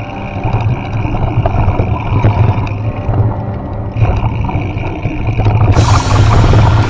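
Off-road vehicle engine running steadily while riding a dirt trail, with a louder hissing rush joining it from about six seconds in.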